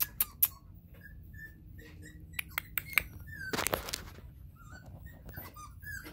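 Schnauzer puppies whimpering: short, high, squeaky whines, some sliding in pitch, coming every second or so. A few sharp clicks near the start and a brief loud rustle about three and a half seconds in. The owner takes the whining as the puppies' sisters wanting to come play.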